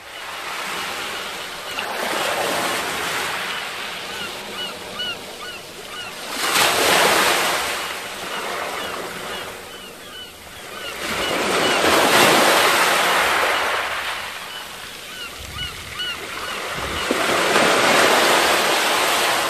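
Surf washing in and out, swelling and falling back about every five seconds, with many short bird chirps over it.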